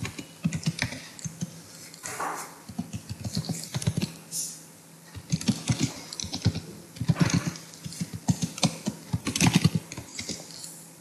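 Typing on a computer keyboard: runs of quick keystrokes with short pauses, entering text into a form, with a lull about halfway through.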